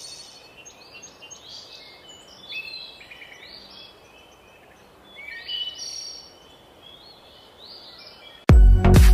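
Birds chirping in short repeated phrases over a steady background hiss. Near the end, loud electronic music with a strong beat starts abruptly.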